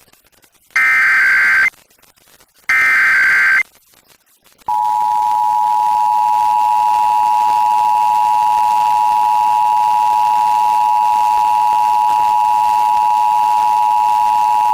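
Emergency Alert System broadcast: the last two of the three warbling bursts of digital SAME header data, about a second each and a second apart, then about five seconds in the EAS two-tone attention signal, held steady for about ten seconds, opening a station's EAS test.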